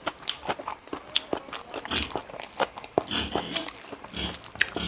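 Close-miked chewing and biting: a person eating pork with bamboo shoot curry, with many short wet smacks and crunchy clicks.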